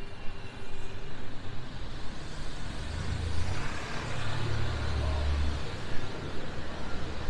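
Street traffic, with a motor vehicle passing: its low engine rumble swells about three seconds in and dies away just before six seconds, over a steady hiss of city noise.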